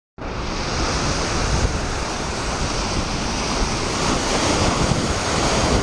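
Ocean surf washing in over rocks just in front of the microphone, a steady loud rush that cuts in suddenly, with wind buffeting the microphone underneath.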